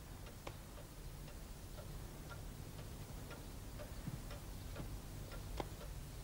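Clock ticking steadily, about two ticks a second, over a faint low room hum, with one sharper click near the end.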